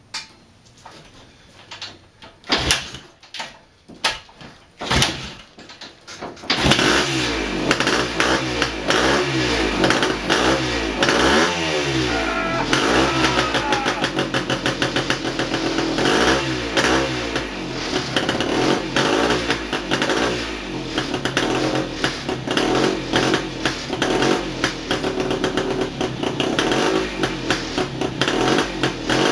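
Yamaha RT3 360 single-cylinder two-stroke motorcycle being kick-started with the choke off: several kicks with short pops, then about six and a half seconds in it catches and keeps running, revs rising and falling as the throttle is blipped. A bike that had refused to start is finally running.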